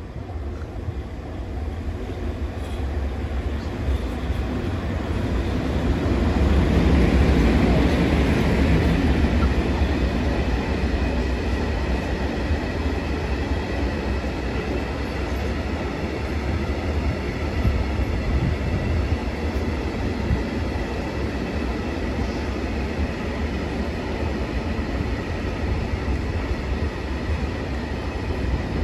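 Freight train passing close by: an electric locomotive draws near, loudest about seven seconds in, then a long rake of empty two-tier car-carrier wagons rolls past with a steady rumble and a faint steady high tone.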